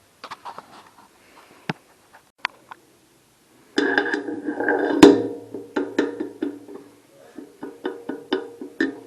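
A few scattered sharp clicks and taps, then background music with a fast, even percussive beat that starts suddenly about four seconds in.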